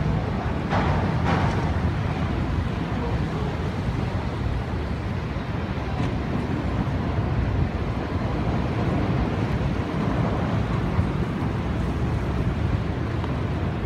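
Wind buffeting the microphone over a steady low rumble of river and city traffic, including boat engines on the river. A couple of short, sharper sounds come about a second in.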